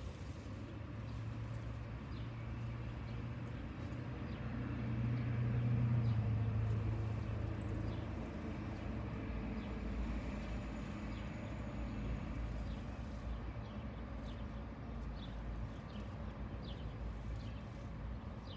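A low engine hum that swells to its loudest about six seconds in and then fades back, with faint short chirps above it.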